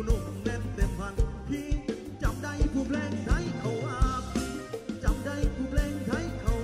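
Live Thai mor lam band playing a fast toei song: a drum kit keeps a quick, steady beat under bass, with a voice singing gliding phrases over it.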